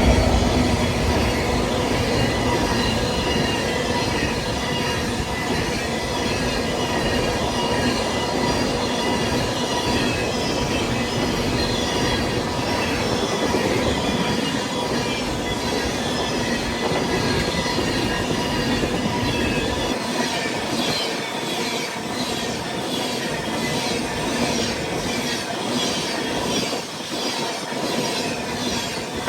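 A freight train of empty ethanol tank cars rolling past at speed: a continuous roll of steel wheels on rail, with steady high-pitched wheel squeal and a regular clatter of wheels over the rail joints that grows plainer in the second half, while the low rumble thins out.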